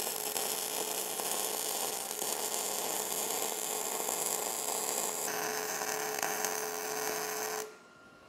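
Wire-feed welder arc crackling steadily as a bead is run along a steel gusset joint, cutting off abruptly shortly before the end.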